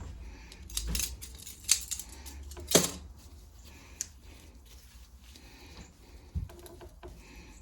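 Light metallic clicks and clinks of small carburetor parts and hand tools being handled and set down, a handful of separate knocks with the loudest nearly three seconds in.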